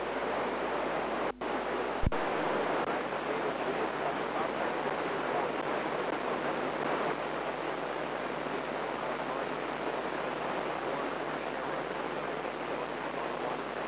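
FM radio receiver hiss from a weak satellite downlink with the squelch open: a steady rushing static. It drops out briefly about a second and a half in, and there is a sharp click about two seconds in.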